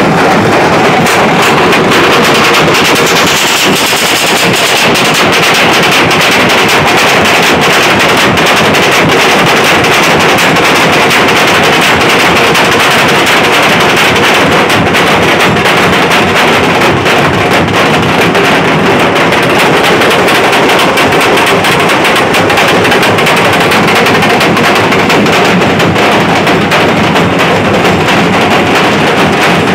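Nashik dhol ensemble: many large two-headed barrel drums beaten together in a fast, dense, unbroken rhythm, very loud.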